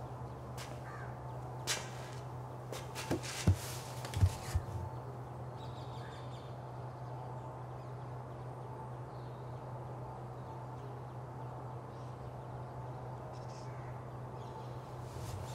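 Crows cawing several times in the first few seconds over a steady low hum of room ambience. A few low thumps come about three and a half to four and a half seconds in.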